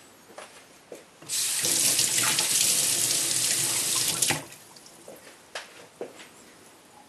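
Water running or splashing steadily for about three seconds, starting about a second in and stopping abruptly, as the stone is wetted. A few light ticks of the steel blade against the wet natural sharpening stone come before and after it.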